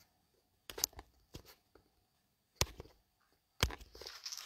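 Handling noise close to the phone's microphone: about four short knocks at irregular intervals with soft rustling between them, as the phone is held and reached for to end the recording.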